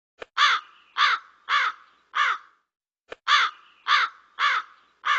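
Crow cawing: two series of four harsh caws, about two caws a second, each series preceded by a short click.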